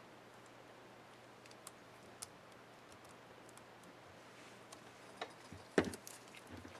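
Light, scattered plastic clicks of a laptop keycap and its clip mechanism being handled and fitted onto a keyboard key, with one louder snap near the end.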